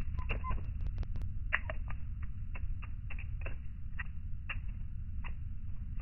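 A steady low rumble with irregular short clicks, about one or two a second, as a varied tit perched on a hand picks among sunflower seeds.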